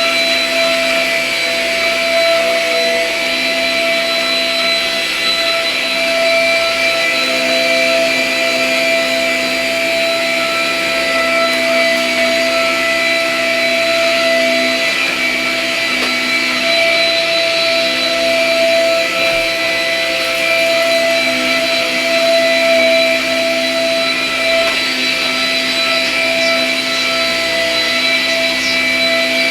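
Vacuum cleaner running steadily, a constant whine of steady tones over a rushing hiss.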